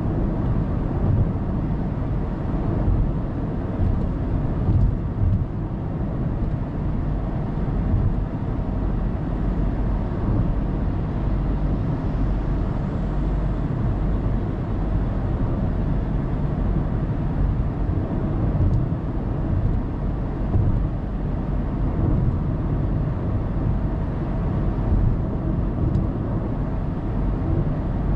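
Steady low rumble of road and engine noise from a car cruising on an expressway, heard inside the cabin through a dashcam.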